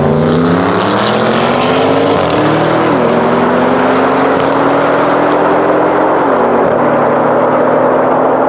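Audi RS6 C7's twin-turbo V8, breathing through a decatted Akrapovic exhaust, accelerating hard at full throttle. Its pitch climbs steadily through each gear, with quick upshifts about three seconds in and again just after six seconds.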